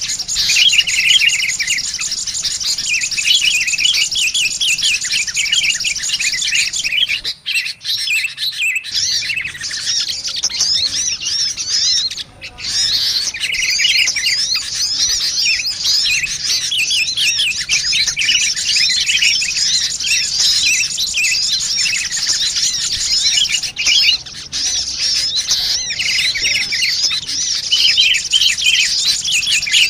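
Bird-lure recording of sunbirds mixed with sooty-headed bulbuls: a dense, busy tangle of rapid high chirps and trills. It breaks off briefly about eight seconds in and again around twelve seconds.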